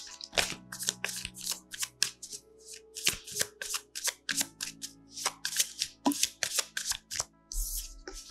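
A deck of tarot cards being shuffled by hand: a quick, uneven run of crisp card-on-card slaps and riffles, with a low knock near the end.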